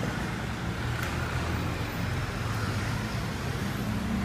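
Motor vehicle engine running steadily, a low even drone with road noise.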